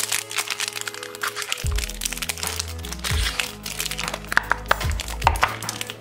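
Sharp plastic clicks and crackles from a small hinged plastic candy box being handled and opened, heard over background music.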